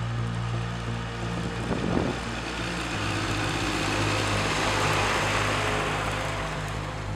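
Tractor pulling a tillage implement through dry soil and stubble, passing close: engine running and the implement working the ground, growing louder and noisier about four seconds in before easing off.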